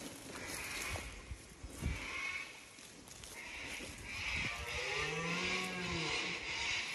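Red deer stag roaring: one long low call, rising then falling in pitch, about five seconds in, over footsteps through grass.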